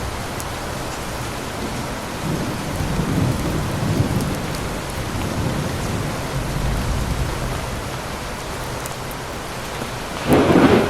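Thunderstorm: steady rain falling, with low thunder rumbling in swells. A sudden, loud crack of thunder comes near the end.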